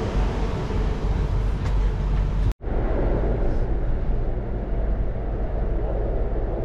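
Metro train noise: a steady rumble and hiss at the carriage doors while boarding, then inside the passenger carriage as the train runs. The sound drops out for an instant about two and a half seconds in and comes back duller.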